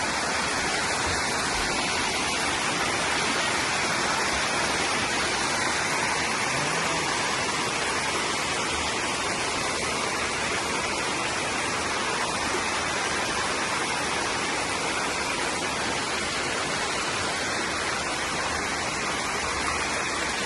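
Waterfall cascading over calcareous tufa steps: a steady, unbroken rush of falling water.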